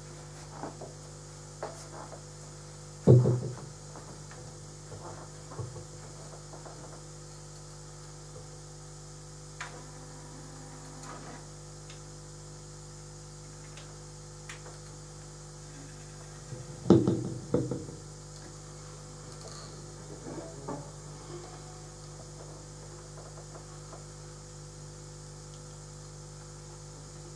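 Steady mains hum from the stage amplification, broken by a loud thump about three seconds in, a cluster of knocks around seventeen seconds and a few fainter clicks and taps.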